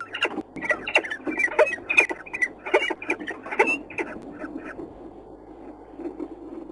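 Birds at a nest squeaking: a rapid series of short, sharp calls for about four seconds, then dying down to faint calls. This is the squeaking heard at a nest changeover when prey is brought in.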